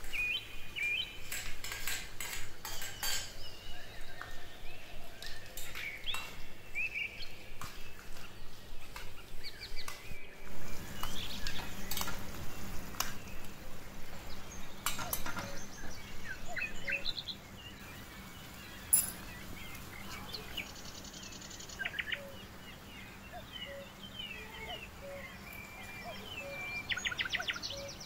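A small metal spoon clinking and scraping against a miniature brass pot and plate as chopped onions are added and stirred, in a series of short sharp clicks. Birds chirp in the background.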